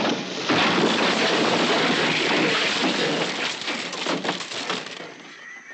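Fire flaring up in a hay barn: a loud rushing roar full of crackles that starts suddenly and dies down near the end.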